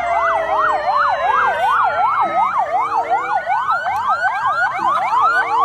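Several ambulance sirens sounding at once: one warbles rapidly up and down, about three sweeps a second, over a slower falling wail. About halfway through, quick rising whoops take over.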